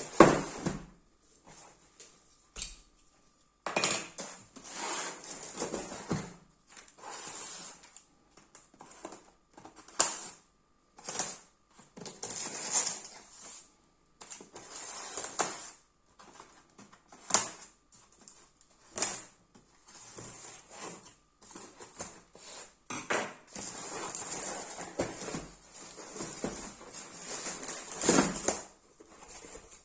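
An airsoft shotgun and its packaging being handled: irregular rustling and scraping, broken by sharp clicks and knocks of plastic and metal. The loudest knock comes right at the start.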